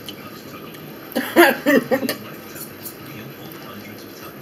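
A short burst of a person's voice, about a second long, starting about a second in, over a steady low hum.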